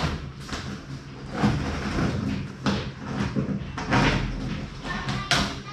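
Scissors cutting open the top of a cardboard box: an irregular run of sharp snips and scrapes with cardboard rustling.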